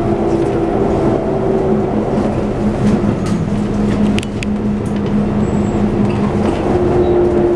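Keikyu 600 series electric train running, heard inside the passenger car: a steady hum with two held tones from its Toyo GTO-VVVF inverter and traction motors over the rumble of wheels on rail. A few sharp clicks come about three to four seconds in, and the higher tone drops out early and returns near the end.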